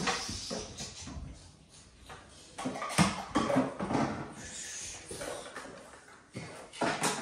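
Knocks and clatter of plastic toy-kitchen pieces being handled: a sharp knock about three seconds in, a quick run of smaller knocks after it, and another knock near the end.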